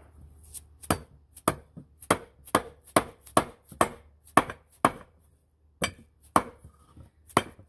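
Hammer striking a wooden board laid across a Sea-Doo jet pump housing, driving a new Delrin wear ring into the housing: sharp knocks about two a second, with a short pause about five seconds in.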